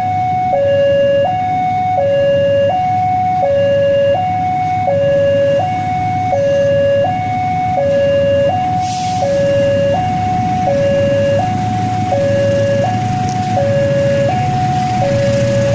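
Electronic level-crossing warning siren sounding its two-tone alarm, alternating steadily between a lower and a higher tone about every 0.7 s, warning of an oncoming train. Under it, the low rumble of an approaching CC 206 diesel locomotive grows near the end.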